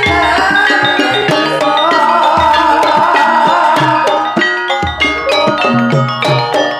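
Javanese gamelan music in Banyumasan style accompanying a kuda kepang dance: struck metal and bamboo keyed instruments ring out over drumming, with a deep low stroke about every two and a half seconds and a wavering melody line through the middle.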